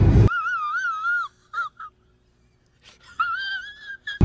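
An edited-in comedy sound effect: a high, wavering squeal in two stretches with a short gap between, while the car's background noise is cut out.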